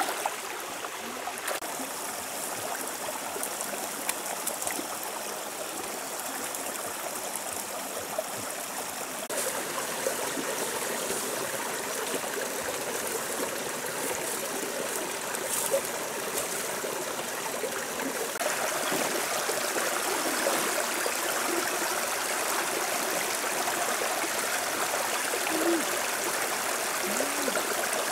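Shallow, rocky stream flowing and trickling over stones in a steady rush of water, growing a little louder about two-thirds of the way through.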